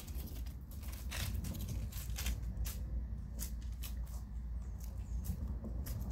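Self-balancing hoverboard rolling across wooden deck boards: a steady low rumble with scattered, irregular clicks.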